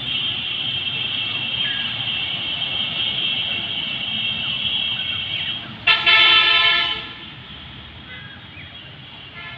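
Vehicle horns from a nearby road: a long, high-pitched honk through most of the first six seconds, then a louder, fuller honk lasting about a second.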